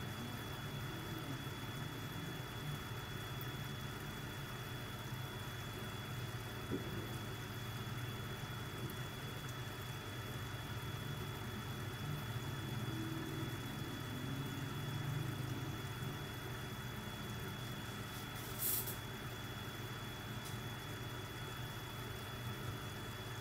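Steady low hum of an aquarium air pump running, with a faint steady high-pitched whine. One brief sharp click or knock about three-quarters of the way through.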